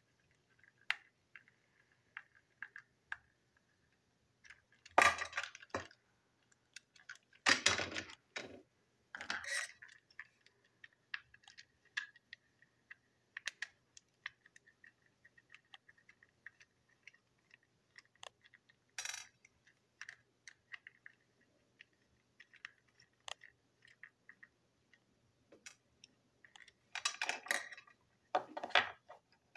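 Small clicks and clatter of a TrackMaster toy train coach being taken apart with a small screwdriver: plastic and metal parts and tiny screws knocking and being set down on a table, with several louder clatters, the longest near the end.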